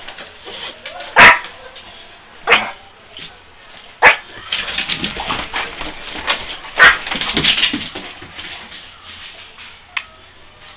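Dogs barking in rough play, a Yorkshire terrier and a Boxer: four sharp barks about one, two and a half, four and nearly seven seconds in, with quieter short sounds between the later ones.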